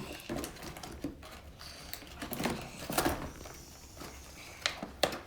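Plastic toy packaging being handled and pried at: scattered crinkles and sharp clicks, with a few short knocks.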